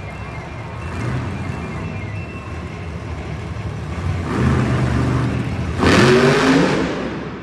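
Monster truck engine revving hard in two surges, the louder one about six seconds in with its pitch climbing before it falls away.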